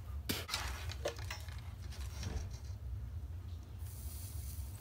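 Soldering flux sizzling as a soldering iron is held to the terminal of a small DC motor: a soft high hiss begins near the end, after a few small clicks of handling. A low steady hum lies underneath throughout.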